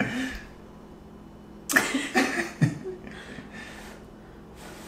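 Soft puffs of breath blown onto the glue of a false eyelash held in tweezers, with a sudden breathy vocal burst about two seconds in.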